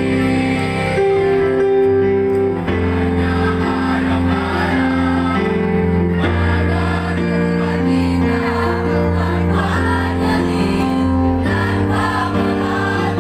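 Mixed choir of boys' and girls' voices singing in harmony, holding long chords that shift every second or two.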